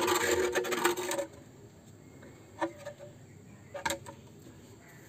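A clay cooking stove (chulha) scraping roughly on a concrete floor as it is shifted by hand, then two short knocks about a second apart.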